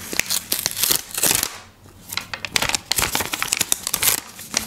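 Stiff, laminated paper cut-outs rustling and crinkling as fingers handle and pull them apart, in a run of small crackles and clicks with a brief lull about two seconds in.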